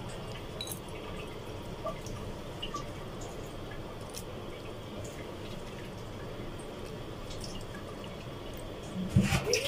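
Faint, scattered water drips over steady low background noise; near the end, a louder splash as running water starts, from rinsing small fish in a sink.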